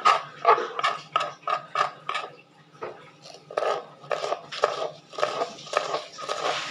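Kitchen knife slicing cabbage against a plastic tray: a run of short, crisp chopping strokes, about three a second, with a brief pause a little under halfway through.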